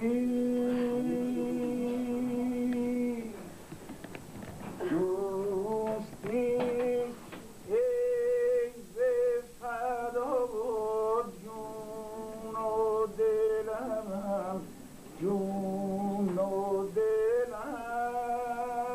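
A man singing a wordless, drawn-out 'aah' melody without accompaniment, holding long notes and sliding between them, with brief pauses for breath.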